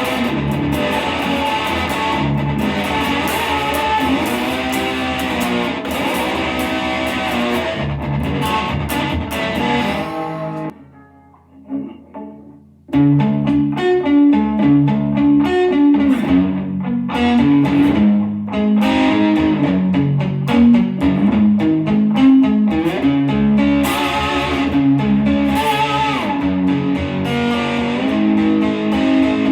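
Mini lap steel guitar being played, its notes sliding up and down in pitch. The playing drops almost to nothing about eleven seconds in, then comes back with a run of plucked notes.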